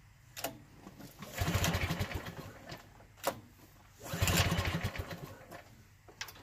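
Recoil pull-start of a Kawasaki FH480V V-twin mower engine: two pulls of the starter rope, each giving about a second of fast cranking that dies away without the engine catching. A sharp click comes just before each pull.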